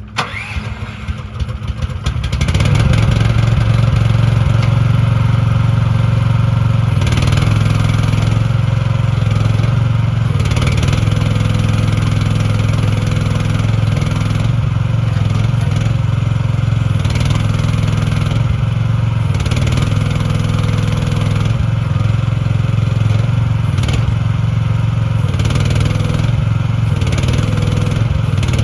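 Small petrol engine of an AGT L12R mini excavator, started cold with the choke on: it cranks unevenly for a couple of seconds, catches, then runs steadily and loudly.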